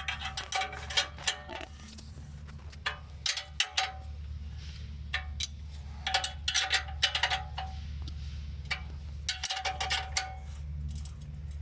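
Metal tools clinking on the steel exhaust pipe and clamp hardware in short bursts of sharp clicks, each with a ringing tone, over a steady low hum.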